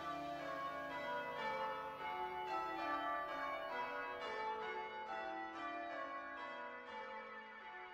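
Church bells of Holy Trinity church ringing a peal of changes, a run of overlapping bell strikes with long ringing tails, slowly fading near the end.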